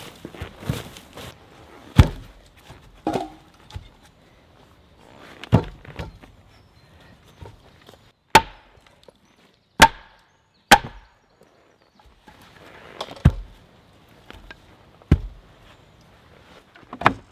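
A tool striking wood: about eight sharp, separate blows at an irregular, unhurried pace, a few of them with a short metallic ring.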